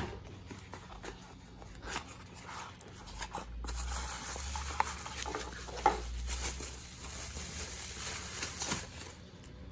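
Hand-handling noises: light rustling with scattered small clicks and knocks as a new replacement robot-vacuum battery pack is taken out and handled. A steadier hiss joins from about three and a half seconds in.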